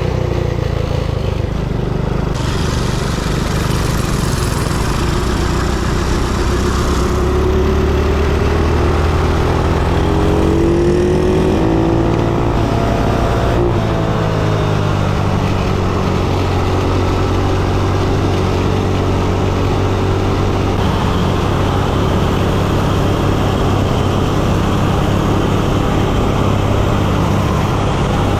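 Small single-cylinder four-stroke minibike engine running steadily under way, its pitch rising and falling a little about ten to fourteen seconds in.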